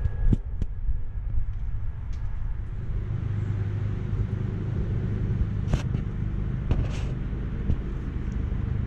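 A vehicle engine running steadily with a low rumble, with a few light clicks of hose fittings being handled, two of them clearer about two-thirds of the way through.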